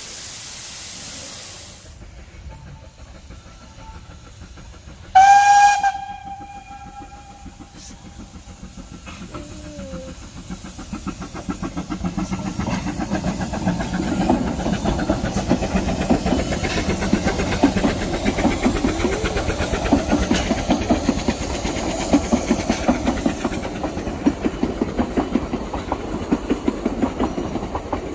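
A narrow-gauge Garratt steam locomotive standing and hissing steam, then a short, loud steam whistle blast about five seconds in. After that the Vale of Rheidol's No.8 'Llewelyn', a GWR-built 2-6-2 tank engine, works a passenger train past with rapid exhaust beats and rail clatter, getting louder from about ten seconds in.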